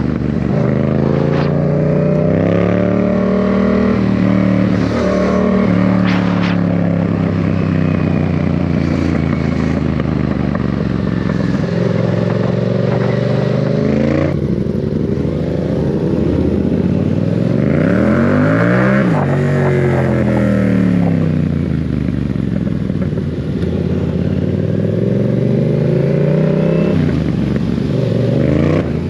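Motorcycle engine and exhaust running hard, its pitch climbing and falling again and again as it accelerates and shifts. About two-thirds of the way through, the pitch drops sharply and climbs straight back up.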